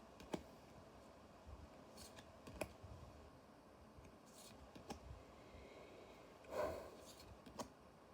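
Trading cards and a booster pack being handled: a few sharp soft clicks and light scraping, with a short louder rustle of the pack about six and a half seconds in.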